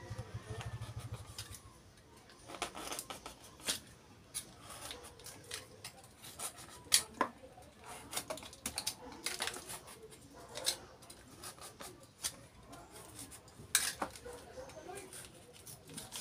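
Scissors snipping through dry, fibrous coconut husk in irregular sharp snips, trimming the husk of a coconut bonsai. A low hum fades out in the first two seconds.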